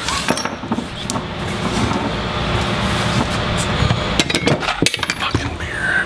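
Small metal parts and tools clinking and knocking on a wooden workbench as they are handled, many separate sharp clicks, over a steady rushing noise with a low hum.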